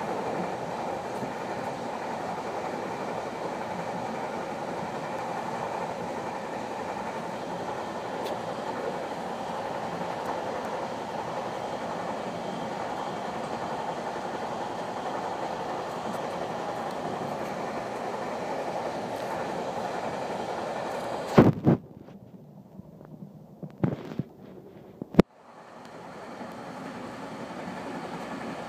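GO Transit commuter train running along the track, heard from inside the passenger coach as a steady rumbling noise of wheels on rail. About three-quarters of the way through, a few sharp loud knocks come, and the sound turns muffled and quieter for a few seconds before the steady train noise comes back.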